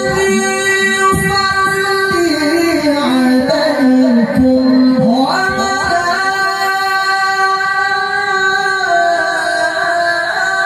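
A qari's high male voice in melodic Quran recitation (tilawah), held in long, ornamented notes into a handheld microphone. The line steps down in pitch, then climbs to a high sustained note about five seconds in.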